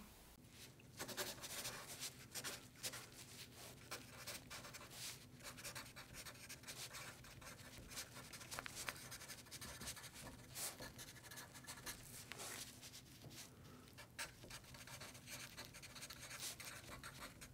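Faint, irregular scratchy crackling: a steady patter of small clicks and scrapes over a low steady hum.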